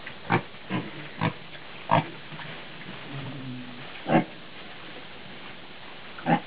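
Young Ossabaw and North American Guinea Hog pigs grunting while rooting in straw: about six short, sharp grunts at irregular intervals, with a fainter drawn-out low grunt midway.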